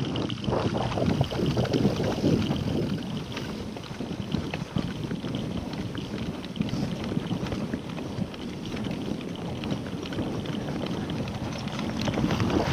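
Mountain bike riding over a dirt trail: wind buffeting the action-camera microphone over a steady rumble of the tyres, with many small rattles and knocks from the bike.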